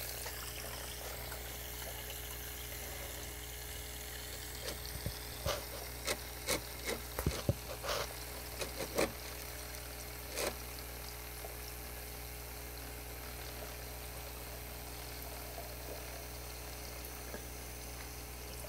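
Small battery-powered motor of a KollerCraft TOM Mr. Cleaner gravel siphon humming steadily underwater as it vacuums debris from aquarium gravel, with a run of sharp clicks and taps from about five to ten seconds in.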